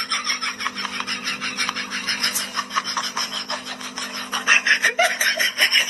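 A pet's paws scratching fast at fabric and bedding: a rapid, even run of rasping strokes, several a second. A faint steady hum lies under it.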